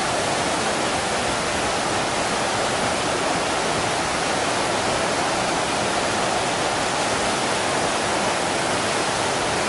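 Mountain stream rushing and splashing over boulders in small cascades, a steady, unbroken sound of running water.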